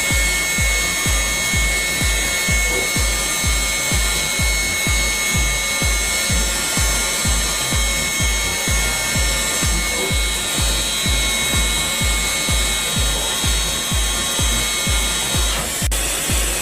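Background music with a steady thumping beat, a little over two beats a second, over a steady high-pitched whine and rasp of machinery.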